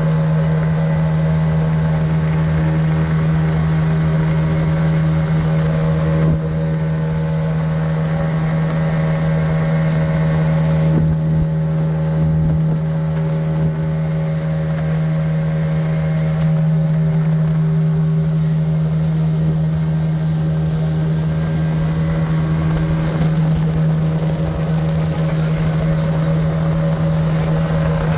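A small motorboat's engine running steadily at cruising speed, a constant low drone.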